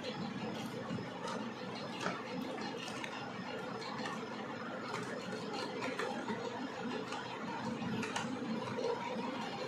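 Light clicks and scraping from wiring a plastic modular switchboard by hand: a wire end is pushed into a socket terminal and a small screwdriver tightens the terminal screw.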